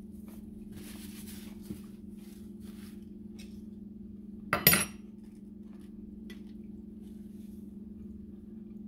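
A short clatter of cutlery against a plate about halfway through, over a steady low hum, with a few faint light clicks between.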